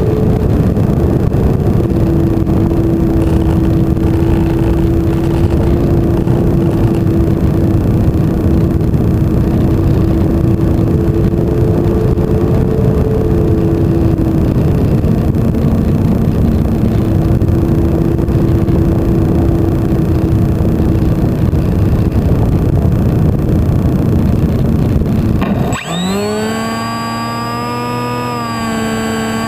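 Wind rushing over an electric flying-wing model plane in flight, with the thin hum of its electric motor and propeller changing pitch a few times with the throttle. Near the end the wind rush stops abruptly and a high, many-toned electronic whine rises and then holds steady.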